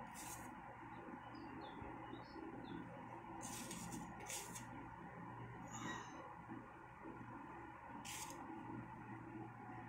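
Faint background ambience with a steady low hum, a few quick high chirps like small birds about two seconds in and again near six seconds, and short bursts of hiss at about four and eight seconds.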